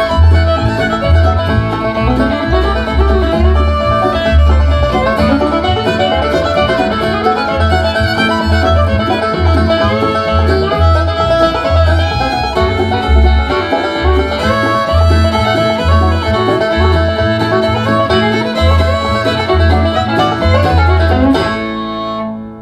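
Country-style music with plucked strings over a heavy pulsing bass beat, played through a TCL S642W 2.1 soundbar and heard through its speakers in the room. The song ends near the end, its last notes ringing down.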